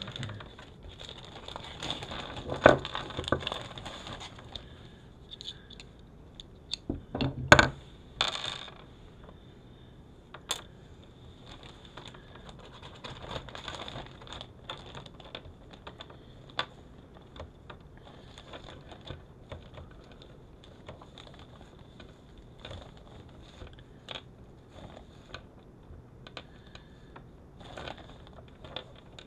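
Small screws and a screwdriver clicking and scraping against the sheet-metal case of a rear-seat video entertainment unit as it is taken apart by hand. There are scattered light clinks, with two sharper knocks about two and a half and seven and a half seconds in.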